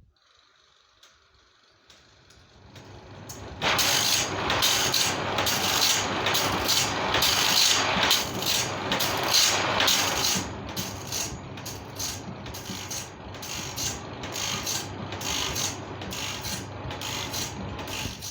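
Sawmill saw-blade sharpening machine starting up and running: the sound builds over about two seconds, then the grinder works the saw teeth in a regular rhythm of about two strokes a second.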